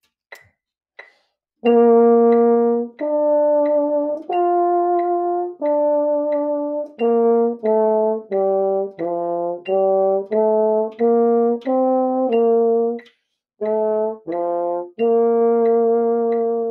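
French horn playing a slow beginner exercise of low notes: four longer notes, then a run of shorter ones, a brief breath near the end, and a final held note.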